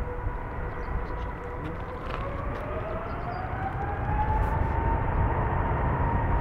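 Airbus A380's four turbofan engines spooling up for takeoff: a whine rises in pitch over a steady low rumble from about two seconds in and levels off, and the engines grow louder near the end.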